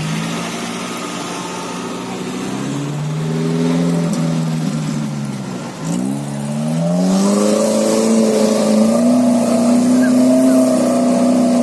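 UAZ Bukhanka van engine working hard off-road, its revs climbing, dropping sharply about six seconds in, then rising again and holding high to the end.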